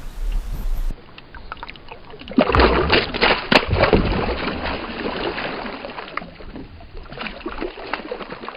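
Water splashing and sloshing, with sharp crackling splashes that are loudest from about two and a half to four seconds in and then die down.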